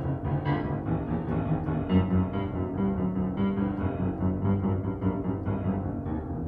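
Dense keyboard music in a piano-like sound, with many overlapping notes. A deep held note enters about two seconds in.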